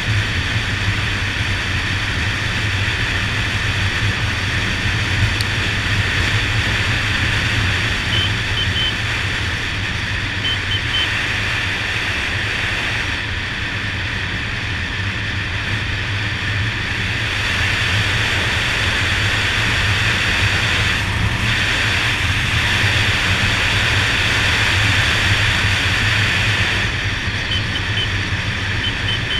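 Steady wind rushing over the microphone on a moving motorcycle, with the low hum of a Honda Dazzler's 150 cc single-cylinder engine underneath at an even cruising speed.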